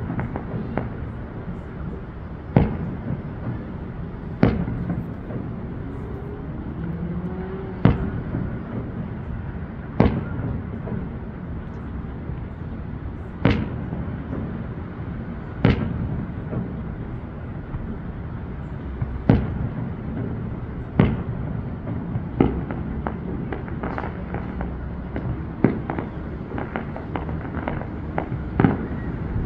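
Fireworks display: sharp bangs of shell bursts about every two seconds over a steady low rumble, with a quicker run of smaller pops near the end.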